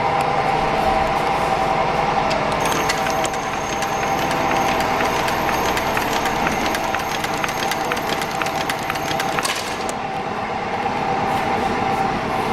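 Puritan stand-up leather stitching machine running unloaded on its Mitsubishi-controlled motor: a steady hum with the stitching mechanism clacking in an even rhythm. From about three seconds in to about nine and a half, a thin high whine joins and the clicking gets denser, then drops away.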